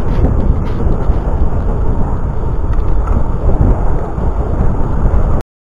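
Loud wind noise buffeting the microphone of a handlebar-mounted action camera on a moving bicycle, a steady low rumble that cuts off suddenly near the end.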